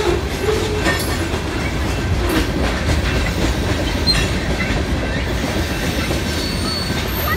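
Freight cars of a passing BNSF manifest train rolling by: a steady rumble of steel wheels on rail with clicks at irregular intervals as the wheels cross the rail joints.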